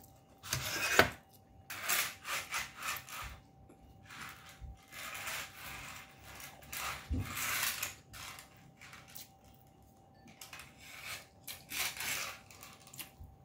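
A person eating noodles with wooden chopsticks: irregular bouts of slurping and chewing, with light clicks of the chopsticks against a ceramic bowl.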